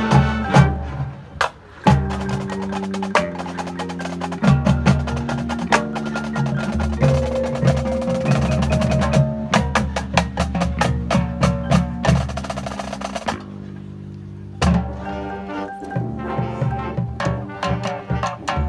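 Marching band playing a percussion-led passage: mallet percussion, wood block and snare strikes over held low chords that change about once a second. It thins out briefly a little after two-thirds of the way through, then the full band comes back in.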